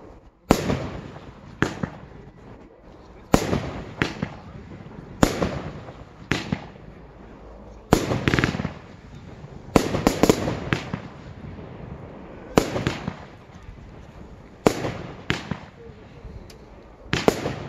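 Aerial fireworks firing and bursting: a string of sharp bangs every second or two, each with an echoing tail, bunched into a quick cluster of several shots around the middle.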